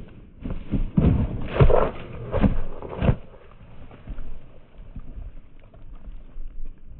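A horse passing close by, its hooves thudding on the ground several times between about half a second and three seconds in, then fainter rustling movement.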